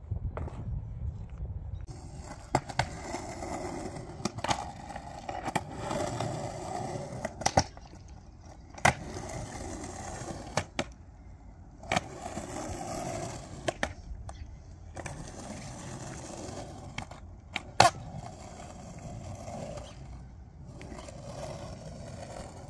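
Skateboard wheels rolling over rough concrete, with sharp clacks every second or two as the board rides in a concrete bowl. The rolling starts about two seconds in, and the loudest clack comes late.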